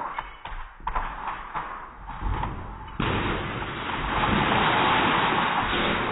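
A few light knocks, then about three seconds in a sudden crash as a dog runs into a kitchen oven door and its glass shatters. The glass keeps showering and crumbling onto the floor for several seconds.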